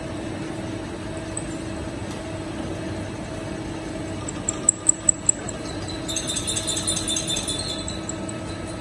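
Horizontal boring mill drilling into a metal box beam with a twist drill: a steady machine hum with a held tone. A few sharp clicks come about halfway through, and a brighter metallic rattle of the cut sets in over the last few seconds.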